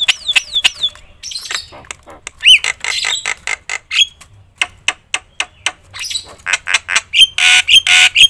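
Javan myna singing loudly and vigorously. Rapid dry clicks run through a varied string of notes, with repeated downward-sliding whistles in the first second and harsh squawks near the end.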